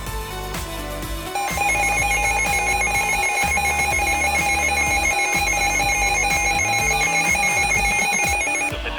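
Emergency alert warning tone: a loud, steady electronic alarm that starts about a second and a half in and holds for about seven seconds before cutting off, over music.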